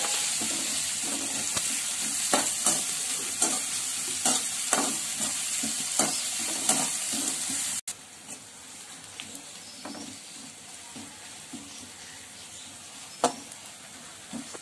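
Sliced onions and curry leaves sizzling in hot oil in a metal kadai while a spoon stirs and scrapes against the pan: they are being sautéed. About eight seconds in the sizzle drops suddenly to a much quieter hiss, with a few spoon taps and one sharp clack near the end.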